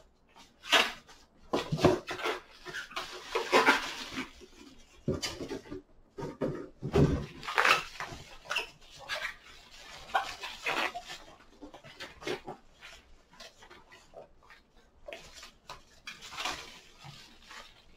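Bubble wrap and a cardboard shipping box being handled: irregular crinkling, rustling and squeaking of plastic as a wrapped package is lifted out and unwrapped.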